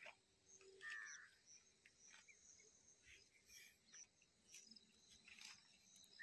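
Near silence: faint open-field ambience with a few scattered small chirps and ticks, one short curling chirp about a second in.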